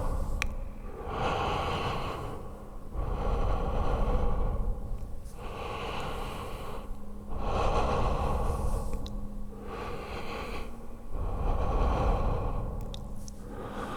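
A person breathing heavily and slowly, each loud inhale and exhale lasting a second or two, in an unbroken cycle: a creepy breathing sound effect for horror.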